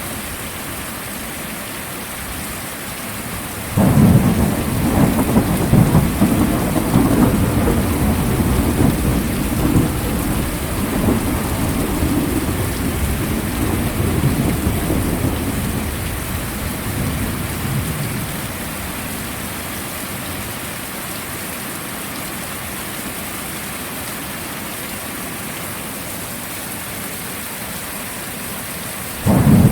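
Heavy rain falling steadily. About four seconds in, a thunder rumble breaks in suddenly and rolls on for some fourteen seconds before fading back to rain. A second rumble starts suddenly near the end.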